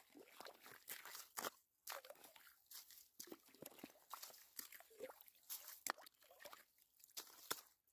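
Ice chips and slush being scraped and scooped out of a freshly drilled ice-fishing hole with a small hand scoop: irregular crunching and scraping strokes, one or two a second.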